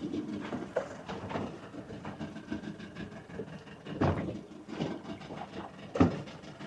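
A small open fishing boat's hull on a choppy sea, with water sloshing against it and irregular hollow knocks. The two loudest knocks come about four and six seconds in.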